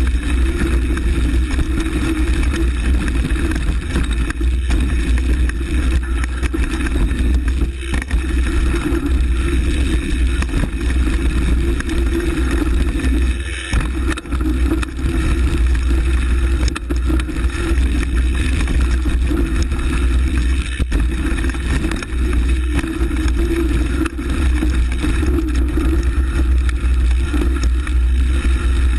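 Mountain bike riding fast over a dirt forest trail, heard through wind rumble on the camera's microphone: a steady, loud mix of buffeting wind, tyre noise and the bike's rattling.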